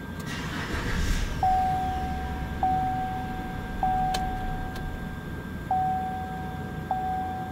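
A truck's starter cranks briefly and the engine catches in the first second or so. Then a dash warning chime dings over and over, about one ding every 1.2 seconds, each ding starting sharply and fading.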